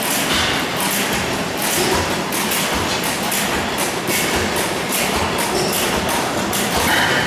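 Antique stationary gas engines running, giving an uneven stream of exhaust thumps and mechanical clatter, a few beats a second.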